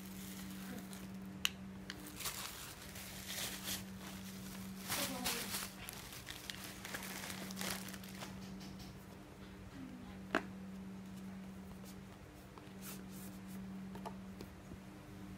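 Clear plastic packaging bag crinkling in several spells as a dash cam accessory cable is unwrapped, with a couple of sharp taps, over a steady low hum.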